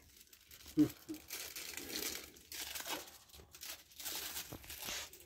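Plastic product packaging crinkling and rustling as it is handled and taken from a pegboard hook. A brief faint voice is heard a little under a second in.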